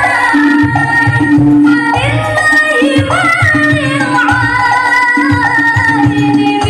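Music played loud through a stacked miniature sound system driven by a home-assembled Crest power amplifier: a sliding melody over a deep, pulsing bass beat.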